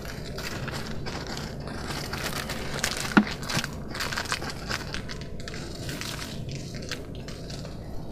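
Irregular crackling and crinkling of a biscuit packet being handled, with crunching, over a low steady hum. A short squeak comes about three seconds in.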